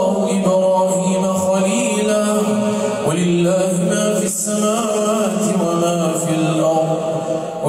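A man's voice reciting the Quran aloud in a melodic, chanted style, holding long drawn-out notes, with a short pause for breath about four seconds in.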